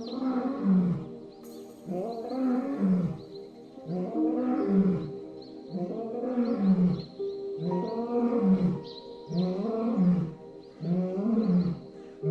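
A big cat roaring in a regular series of calls, about one every one and a half to two seconds, each rising then falling in pitch, over soft background music with held tones.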